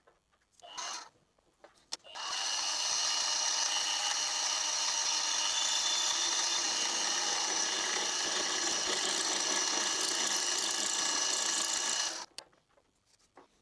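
A power tool motor starts with a click about two seconds in and runs steadily with a high-pitched whine for about ten seconds, then stops abruptly.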